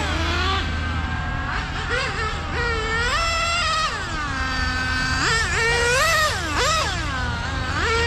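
Serpent 990 1/8-scale on-road car's OS Speed nitro engine screaming at high revs, its pitch climbing and falling repeatedly as the car accelerates and brakes around the track. The note drops low for about a second near the middle, then climbs again.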